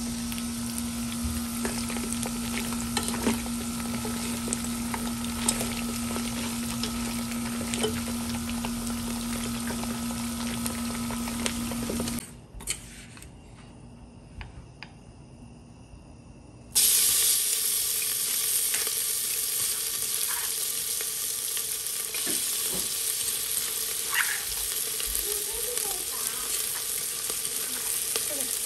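Chicken feet sizzling in a large pot over a gas burner, with a steady low hum. After a short quieter break, chopped ginger, garlic, onion and chilli start to sizzle loudly in hot oil in an aluminium pressure cooker.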